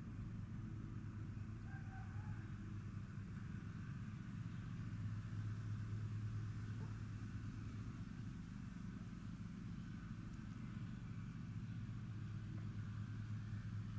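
Outdoor ambience: a steady low mechanical hum, with a few faint bird chirps about two seconds in.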